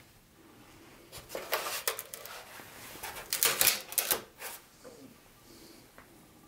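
Hands handling small hard parts and packaging of a model train set: a run of clicks and rattles, loudest about three and a half seconds in.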